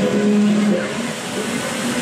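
Street traffic noise, with a car engine running as it passes.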